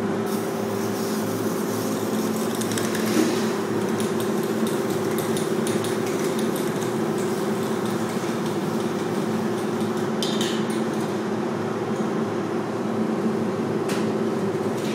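Steady mechanical hum of a ventilation fan with a few constant tones, with a short hiss about ten seconds in and a faint click near the end.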